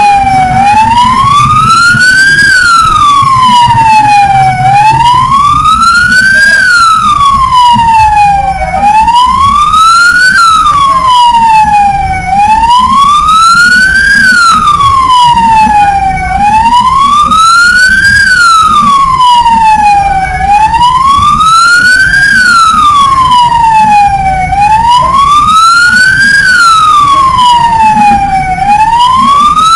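Siren wailing, its pitch rising and falling smoothly, one full cycle about every four seconds without a break.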